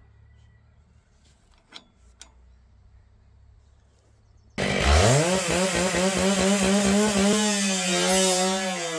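Near silence with two faint clicks, then about halfway through a two-stroke chainsaw starts suddenly, its pitch climbing quickly as it revs to full throttle. It runs high and steady, dropping slightly in pitch near the end.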